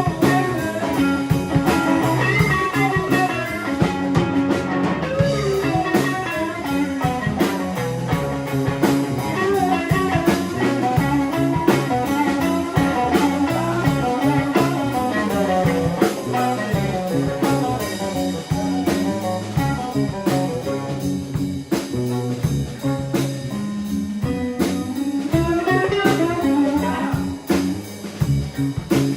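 Live blues-rock trio playing: electric guitar carrying a melodic line with string bends over electric bass and a drum kit, with no singing.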